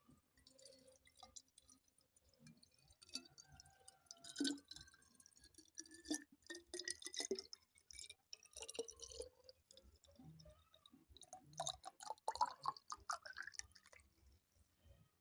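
Faint, irregular water dripping and splashing, with small glassy clicks and clinks scattered through.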